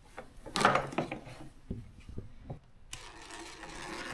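Plastic bumper trim and clips being worked by hand. A loud knock about half a second in and a few clicks follow, then a steady rubbing scrape of plastic from about three seconds in.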